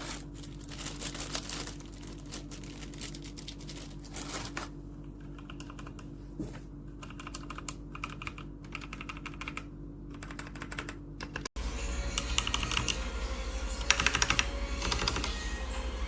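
Typing on a Zifriend T62 60% mechanical keyboard: rapid runs of clacking keystrokes. About eleven seconds in, the sound cuts abruptly to a louder recording of typing over a steady low hum.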